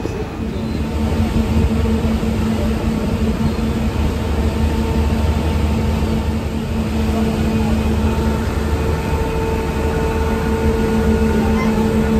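Passenger ferry's engine running steadily: a low drone with a constant humming tone over it.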